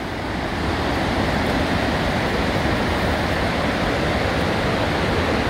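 Steady rushing of a mountain waterfall and stream, a loud even wash of water noise.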